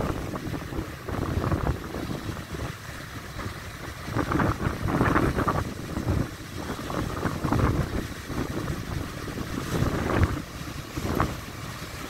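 Rough sea surf churning around a concrete pier platform and washing over it, water pouring off its edges, swelling in irregular surges with wind buffeting the microphone.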